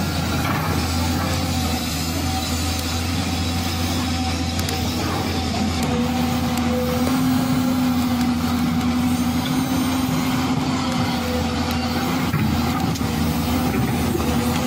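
Remote-control toy excavator working its boom and bucket: a steady mechanical hum with whining motor tones that grow louder about halfway through.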